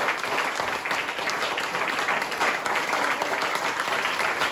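Audience applauding steadily, with some hands clapping close by.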